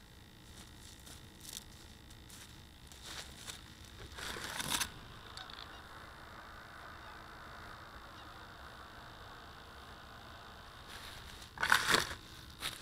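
Dry straw stubble rustling and crackling close to the microphone in short bursts, a few seconds in and again near the end.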